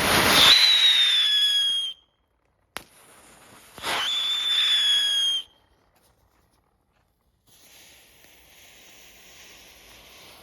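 Wheeled 'antique car' novelty ground firework going off: two loud whistling bursts, each a shrill tone sliding slightly down in pitch over about a second and a half, the second starting about four seconds in. A fainter steady hiss of burning composition follows near the end.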